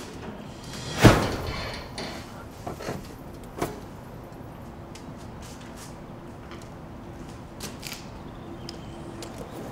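A loud knock about a second in that rings on briefly, followed by several lighter clicks and taps over a faint steady hum.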